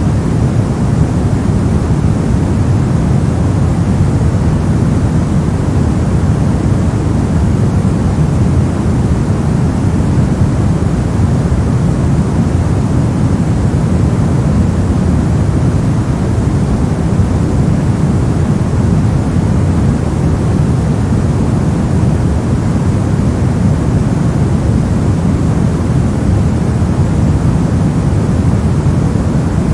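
Steady generated white noise for sleep: a constant, even rush with no changes, heavier in the low end than in the highs.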